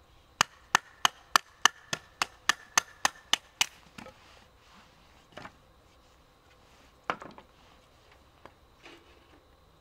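A hatchet splitting firewood into kindling on a wooden stump: a quick run of about a dozen sharp wooden knocks, roughly three a second, as the blade and log are struck down together, then a few fainter knocks and one louder knock about seven seconds in.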